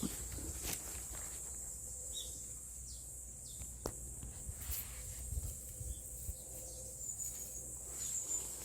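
Quiet hillside ambience: a few short, high bird chirps over a steady background hiss, with scattered light snaps.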